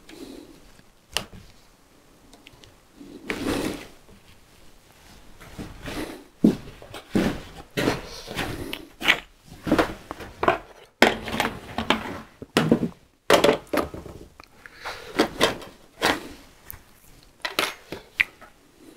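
Hand tools being picked up, moved and set down on a wooden workbench: an irregular run of knocks, clatters and short scrapes of metal and wood, loudest about halfway through.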